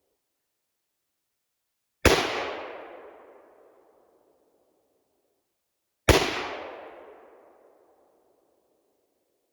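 Two gunshots about four seconds apart, each a sharp crack followed by an echo that dies away over about two seconds.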